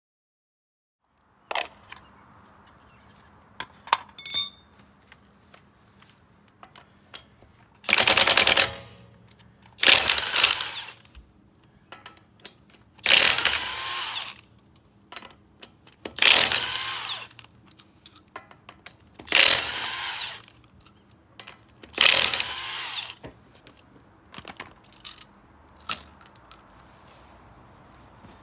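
Cordless impact wrench running lug nuts off a wheel hub in six bursts of about a second each, a few seconds apart, with small metal clicks and knocks between them.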